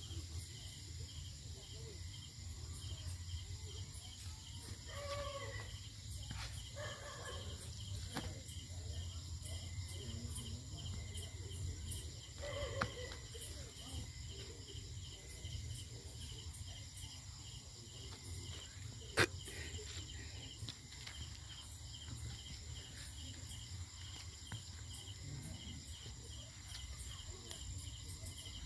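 Night-time chorus of crickets chirping in a fast, even pulse over a low hum. A few brief pitched calls come about five, seven and thirteen seconds in, and a single sharp click about two-thirds of the way through.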